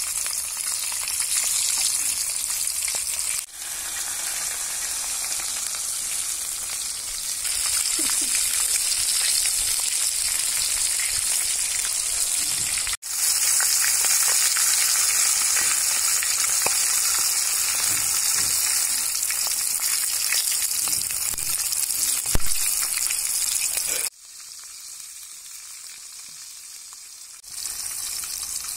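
Whole chicken deep-frying in hot oil in a karahi: a steady, loud sizzle with a hissing spatter. It breaks off briefly twice and drops to a quieter sizzle near the end, with a single sharp knock about three quarters of the way through.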